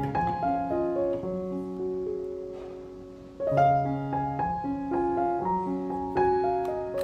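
Background piano music: a gentle melody of held notes, the sound dying away about three seconds in before new notes are struck.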